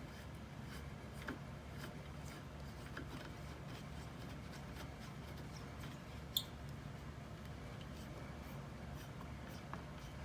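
Faint scattered clicks and scrapes of screws being worked out of a car's plastic fog light cover, with one sharper click about six seconds in, over a low steady hum.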